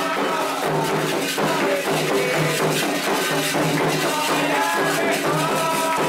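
Candomblé ritual music for the dance of the orixás: drums beating a steady rhythm with a rattling shaker over it and voices singing.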